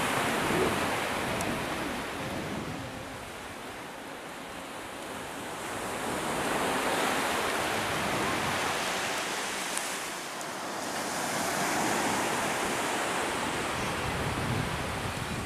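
Sea waves washing onto the beach, the surf noise swelling and falling back every few seconds.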